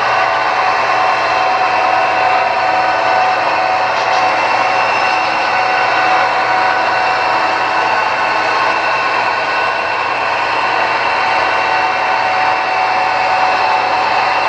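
HO scale model train rolling past, a steady whir of the model's wheels on the rails and its motor.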